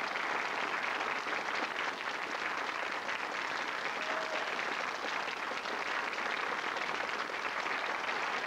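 Studio audience applauding steadily, a dense, even clapping that holds throughout.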